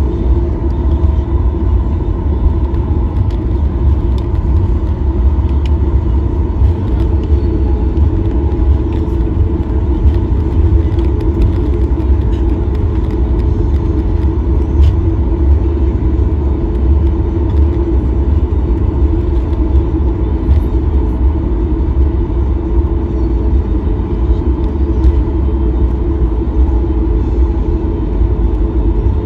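Cabin noise of a Boeing 737 taxiing: the jet engines at low taxi power give a steady deep rumble with a steady hum over it.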